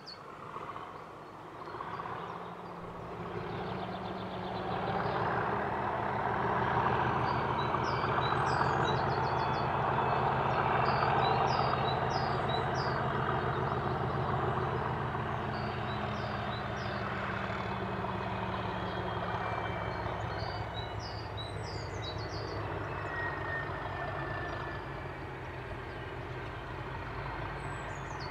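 Class 37 diesel-electric locomotive's English Electric V12 engine, unseen but approaching, its heavy low drone building over the first several seconds and then holding steady. Small birds chirp over it.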